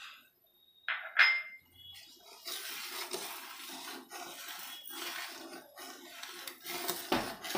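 A steel ladle stirs and scrapes through thickening milk in a steel pan, over and over, with one ringing metal clink about a second in. The milk, grainy from a little vinegar, is being reduced on a high flame for kalakand.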